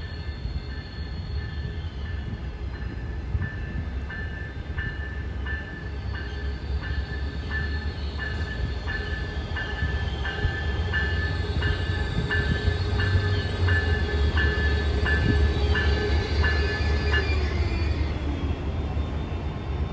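Grade-crossing warning bell ringing steadily, about one and a half strikes a second, over the low rumble of an approaching COASTER commuter train's Siemens Charger diesel locomotive that grows louder as it nears. The bell stops about seventeen seconds in, and a whine falls in pitch as the train slows into the station.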